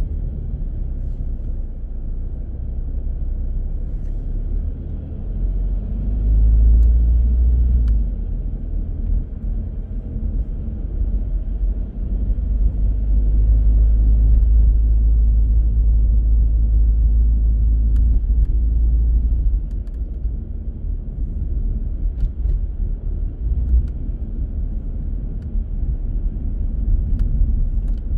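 Car driving on city streets: a steady low rumble of engine and road noise, swelling louder for a couple of seconds about six seconds in and again from about twelve to nineteen seconds in, with a few faint clicks.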